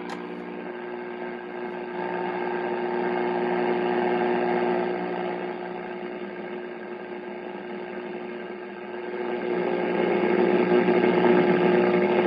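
1939 Philco 40-120 tube radio's speaker giving out static and hiss over a steady hum while it is tuned on the police/160-meter band, the noise swelling and fading as the dial moves and no station coming in clearly. A sharp click right at the start.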